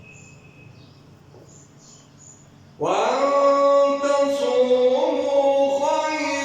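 A quiet pause with faint room tone, then about three seconds in a man's voice starts a melodic Quran recitation phrase, chanting in long held notes that slowly bend in pitch.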